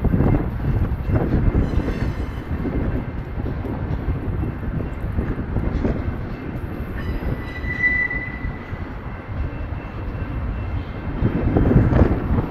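Freight train of double-stack intermodal well cars rolling past: a steady rumble of steel wheels on rail with repeated clacks, swelling near the end. A short high squeal comes about eight seconds in.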